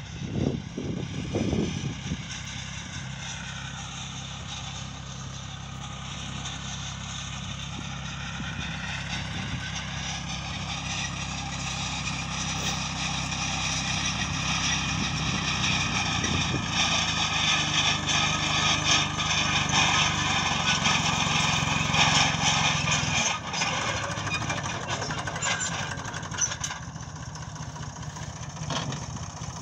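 Massey Ferguson tractor's diesel engine running steadily while it tows a field roller across the sown field. It grows louder as it approaches and drops off about three-quarters of the way through.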